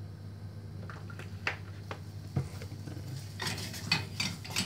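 Wooden spatula stirring ground spices in oil in a small stainless-steel saucepan: a few separate knocks, then quicker scraping and tapping against the pan from about three seconds in.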